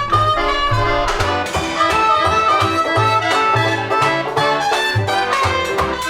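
Lively instrumental background music with a bouncing bass line under a melody.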